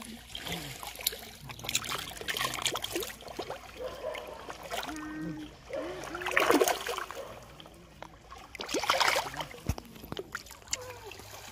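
Fish splashing and churning at the water's surface of a pond, in repeated bursts of splashing, loudest about six and nine seconds in.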